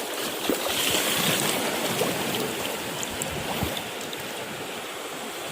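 Water rushing and splashing beside a small boat, easing off slightly about four seconds in.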